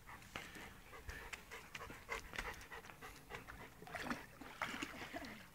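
A Japanese Akita panting faintly with its mouth open, cooling off after exercise.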